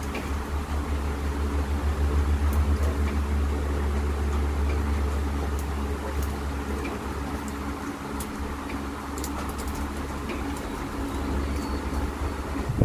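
Steady low motor hum with scattered light clicks and taps, a little louder in the first half.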